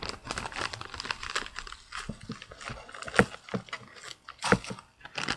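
Packaging from a subscription box rustling and crinkling as it is handled, a dense irregular crackle with two sharper knocks about three and four and a half seconds in.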